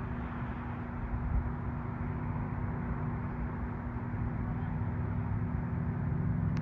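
Ram 1500 pickup's engine idling with a steady low hum.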